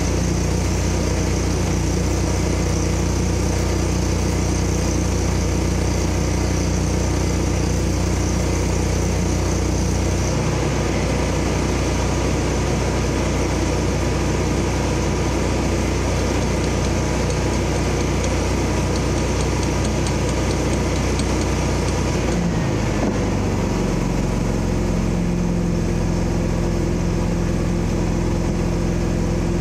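An engine idling steadily, its note shifting slightly about twenty-two seconds in.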